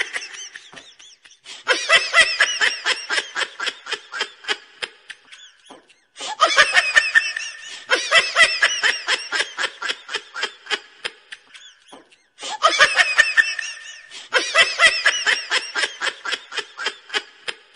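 Laughter sound effect: high, bouncing giggles about four a second, in three similar phrases of several seconds each with short breaks between.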